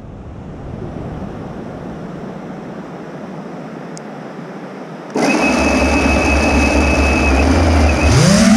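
Small 3-inch FPV quadcopter's brushless motors: after about five seconds of steady hiss, the motors arm and idle with a steady hum and a thin high whine. Near the end they spool up with a rising whine as the throttle comes up.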